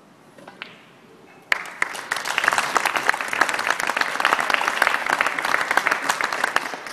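Snooker audience applauding. The applause starts suddenly about a second and a half in, just after a couple of faint clicks of the cue and the balls.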